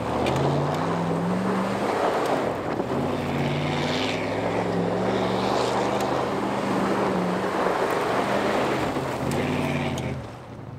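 1995 Chevy Tahoe 4x4 on 35-inch mud-terrain tires accelerating hard across loose dirt, the engine revving with its pitch climbing and dropping several times as it pulls through the gears, over the rush of tires on dirt and gravel. It fades as the truck pulls away about ten seconds in.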